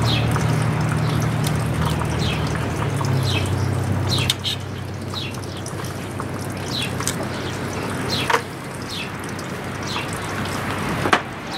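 Small birds chirping: repeated short falling chirps, several a second apart, over a low steady hum that stops about four seconds in. A couple of sharp knocks near the end.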